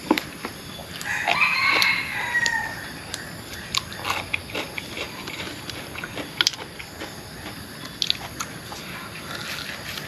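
A rooster crows once, about a second in, a single call that falls in pitch at its end. Close, scattered clicks and smacks from handling and eating food sound throughout.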